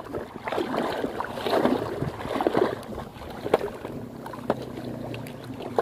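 Shallow seawater sloshing and swishing around the legs of someone wading, loudest over the first few seconds, with a few sharp clicks later on.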